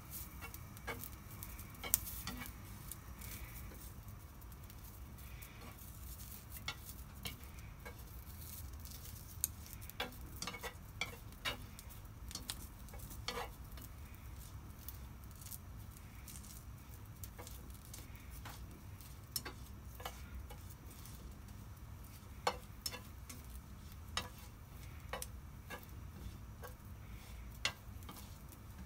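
Small red wieners frying gently in a nonstick frying pan with a faint sizzle, and scattered sharp clicks of wooden chopsticks tapping the pan as the sausages are turned.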